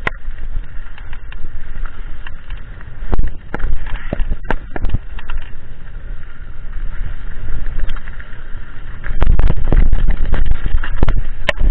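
Mountain bike descending a dirt trail at speed: wind rumble on the camera microphone and tyre noise, with sharp knocks and rattles as the bike hits bumps. It gets louder and rougher about nine seconds in.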